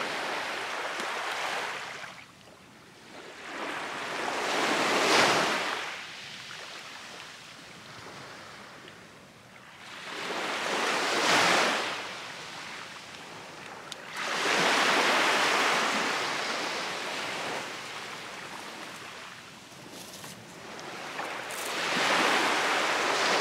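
Waves washing onto the shore: about five surges of surf that swell and die away, several seconds apart.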